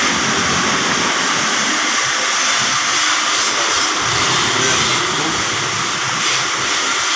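A steady, loud rushing hiss, even throughout, with no distinct tones or knocks.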